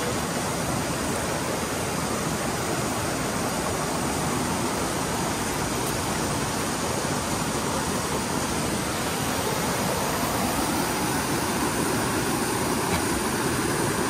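Waterfall: the steady rush of falling water, an even noise that holds at one level throughout.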